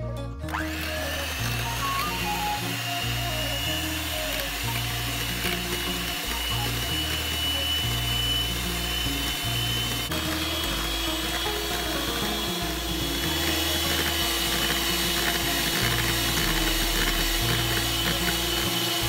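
Electric hand mixer running steadily, its beaters whipping cream in a glass bowl as it thickens toward soft peaks; the motor's whine changes slightly about halfway through.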